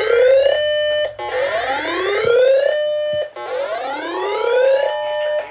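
Uniden BCD996P2 scanner sounding its weather-alert siren tone through its speaker: a synthetic siren that rises in pitch and briefly holds, repeated about three times at roughly two-second intervals. It is loud.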